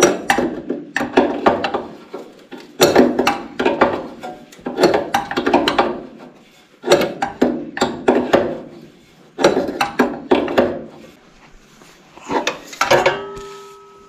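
Hand tool working a hydraulic hose fitting on an excavator: repeated strokes of metallic clicking and clinking, about one every one and a half to two seconds, as the leaking fitting at the hydraulic tank is tightened. Near the end a short metallic ring.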